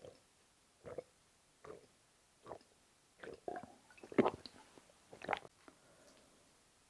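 A person gulping a drink from a glass, swallows coming about once a second, with a few louder gulps and mouth sounds in the middle.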